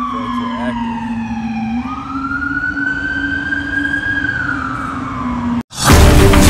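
Emergency-vehicle siren wailing slowly, its pitch falling, rising and falling again over a steady low hum. It cuts off suddenly near the end, and loud music comes in.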